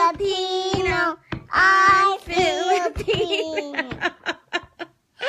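A toddler girl singing in a high voice, holding and sliding between notes, followed by a few short clicks near the end.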